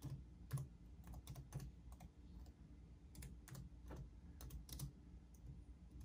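Faint typing on a computer keyboard: a run of irregular key clicks as a drive name is entered.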